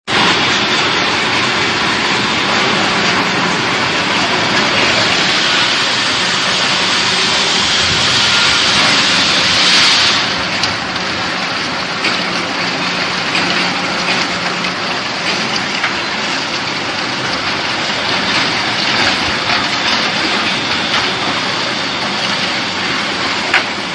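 18.5 kW multi-roller log debarker running while a log is pushed through, its toothed rollers stripping the bark: a loud, steady rattling noise full of small knocks over a low motor hum. It grows brighter for the first ten seconds or so, then eases a little.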